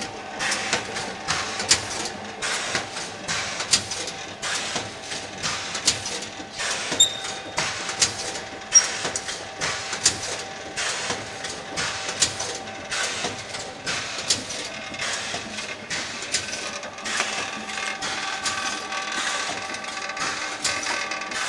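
Gainsborough vertical sachet packaging machine running while it makes empty sachets: a sharp mechanical clack about once a second, with a steady hum underneath.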